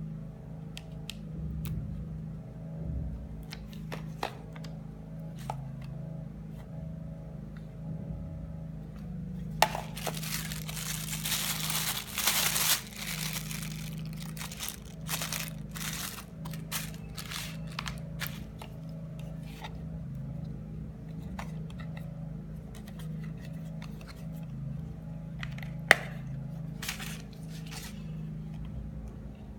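Hands unpacking a boxed mobile phone: scattered sharp clicks and crinkling of packaging, with a few seconds of dense rustling and tearing from about ten seconds in. A steady low hum runs underneath.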